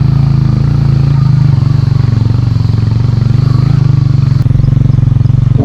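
A vehicle engine running steadily while under way: a loud, even, deep drone.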